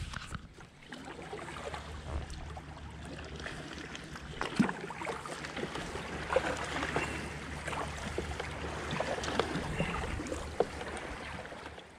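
Kayak being paddled with a double-bladed paddle: water splashing and running off the blades and lapping against the hull, with sharp splashes scattered through it, more of them from about four seconds in, over a low steady rumble.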